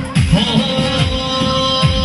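Amplified live dance music through loudspeakers: a steady drum beat under held keyboard notes.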